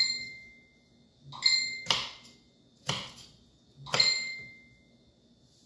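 Chef's knife chopping through broccoli stalks onto a wooden cutting board: about five sharp strokes roughly a second apart. Three of them are followed by a brief, clear, high metallic ring.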